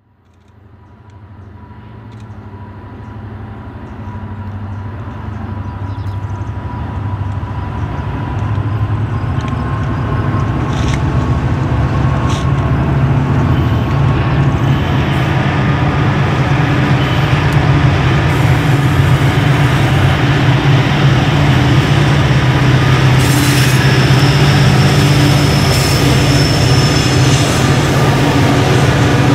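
HO scale model freight train rolling past, led by diesel locomotives: a steady diesel engine rumble with wheels clicking on the track. It fades in from near silence and grows louder over the first ten seconds or so, then holds steady.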